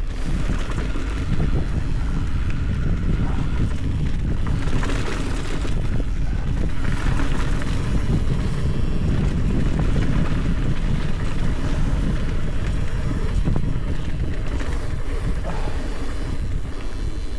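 Wind buffeting the microphone of a camera mounted on a mountain biker as the bike speeds down a dirt trail, a loud, steady low rumble, with tyre noise on the loose dirt and light rattles from the bike.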